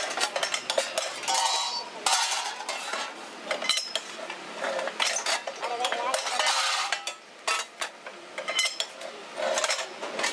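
Hand-lever shear cutting steel sheet, with the loose plates clanking as they are handled: a run of sharp metallic clanks and clinks, with a couple of longer scraping stretches.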